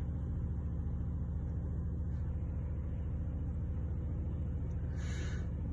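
Domestic cat purring steadily, a low, fast-fluttering rumble.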